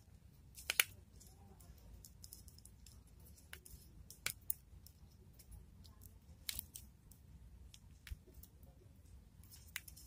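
Screwdriver working a terminal screw on an LC1-D12 contactor to clamp a wire, making scattered faint clicks and scrapes of metal on metal and wire being handled.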